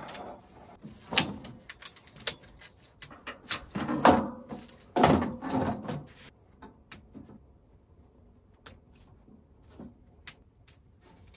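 Handling noises from setting up camp: rustling with a run of sharp clicks and knocks for about six seconds, the loudest knocks about one, four and five seconds in. It then goes quieter, with scattered ticks and faint, short, high chirps.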